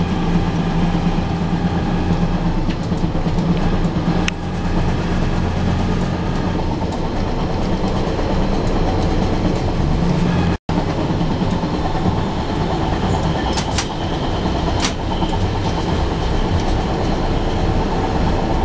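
Diesel railcar running along the track, heard from the driver's cab: a steady engine drone with scattered clicks of the wheels over the rail joints. The sound drops out for an instant a little past halfway, at a splice in the recording.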